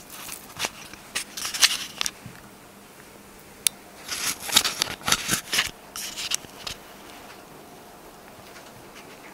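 Rustling and handling noises as people shift places and move clothing and a book near a clip-on microphone. The noise comes in bursts for the first two seconds and again from about four to six and a half seconds in, with a single sharp click between them.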